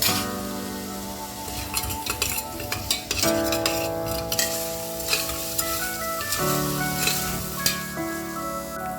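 Food sizzling in hot oil in a pan while a spatula stirs it, with short clicks and scrapes against the pan, over background music.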